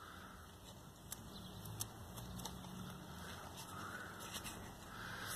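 Faint handling sounds from gloved hands turning a removed aluminium boost pipe: scattered small clicks and soft rustles.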